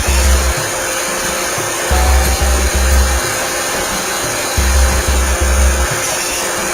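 iRobot Roomba 620 robot vacuum running steadily, a constant whooshing motor and brush noise, heard from on board the robot. Under it, a low bass beat of three pulses repeats about every two and a half seconds.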